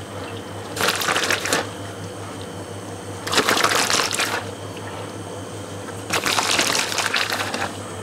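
Plastic bag of shredded cheese crinkling in three rustling bursts, each about a second long, as cheese is shaken out and scattered by hand, over a steady low hum.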